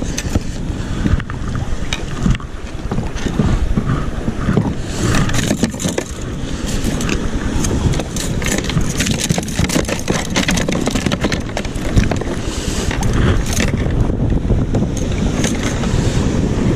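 Wind rumbling on the microphone, with scattered knocks, clicks and rustles from handling a fish and tackle on a plastic kayak deck.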